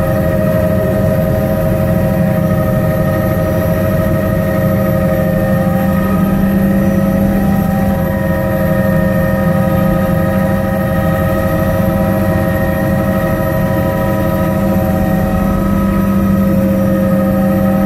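Helicopter engine and rotors heard from inside the cabin during lift-off and climb: a loud, steady hum with several steady whining tones above it.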